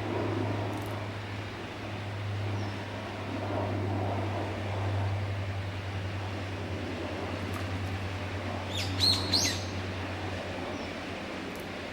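Common kingfisher giving a quick run of three or four short, high, thin calls about three-quarters of the way in, over a steady low rumble.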